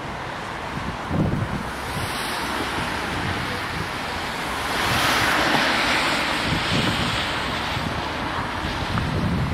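Wind buffeting the microphone in uneven low gusts over a steady rushing noise that swells about halfway through.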